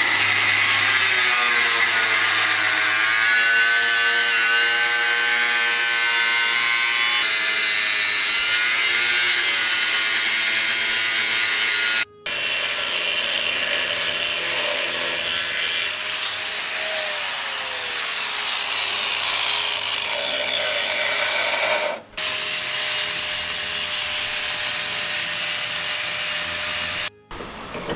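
Angle grinder grinding and cutting sheet-metal patch steel, its motor pitch shifting and dipping as the disc bites. It runs in three long stretches, stopping briefly about 12 and 22 seconds in, and shuts off shortly before the end.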